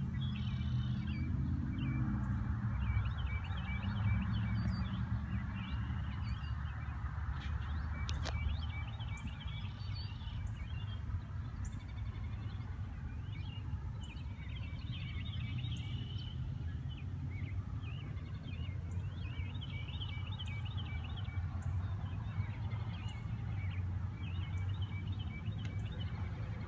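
Wild birds chirping and trilling over and over, with a steady low rumble beneath them. A single sharp click comes about eight seconds in.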